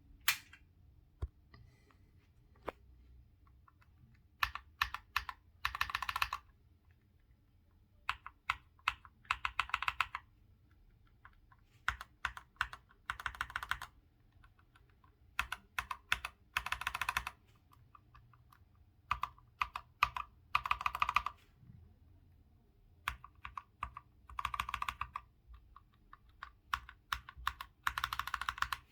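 Hator Skyfall TKL Pro mechanical keyboard with PBT keycaps, keys pressed switch by switch: seven rounds, each a few separate keystrokes then a quick run of rapid presses, with short pauses between rounds.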